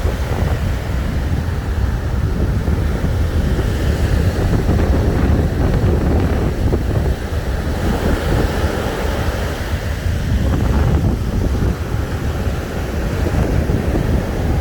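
Indian Ocean surf washing onto the beach, mixed with steady wind buffeting the microphone as a low rumble.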